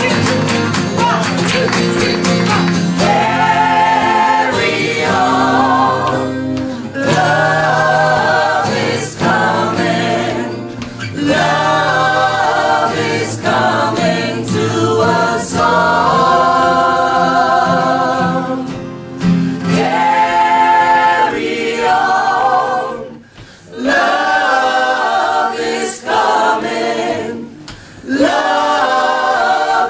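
A small group of men and women singing together in phrases with short breaths between them, over acoustic guitar strumming that is clearest in the first few seconds.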